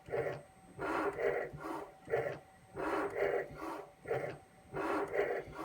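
Rhythmic panting or heavy breathing, like an animal's, in pairs of breaths about once a second.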